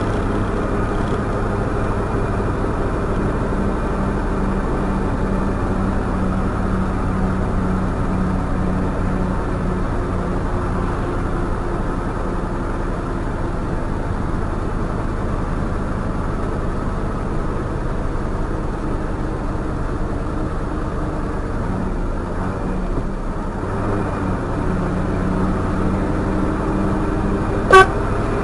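Truck engine running steadily on the move, its drone dipping briefly and picking back up a little after twenty seconds in. Near the end, one short, loud horn toot.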